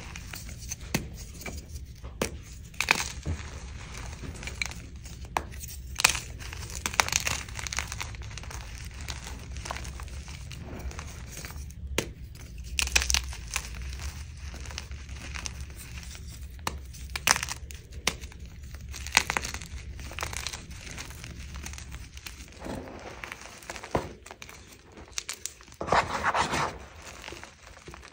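Hands crushing and crumbling blocks of dyed blue and yellow gym chalk in a plastic tub, giving irregular soft crunches with sharp crackles and a few louder snaps. There is a longer, denser crunch near the end.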